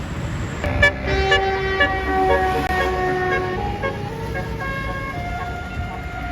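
Bus 'telolet' horn (Basuri multi-tone horn) playing a quick string of notes, several tones sounding together and stepping in pitch, starting a little under a second in and running on in shorter notes, over a low rumble of traffic.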